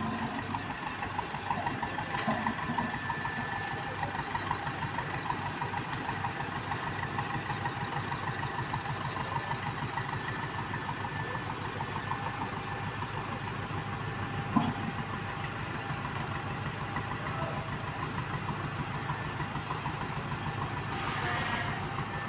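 A heavy engine running steadily with an even, rapid chug, and one sharp knock about 14 seconds in.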